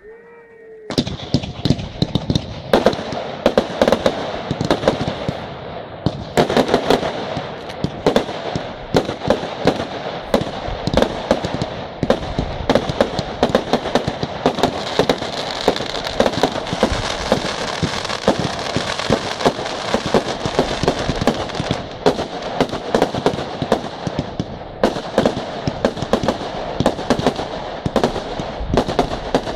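Professional firework display: from about a second in, a dense, unbroken barrage of bangs and crackling shell bursts.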